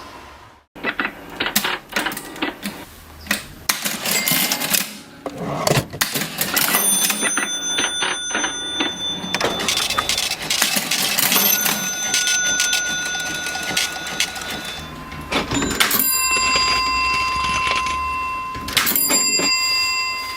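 Vintage mechanical cash register being worked: a busy clatter of keys and levers, with its bell ringing about four times.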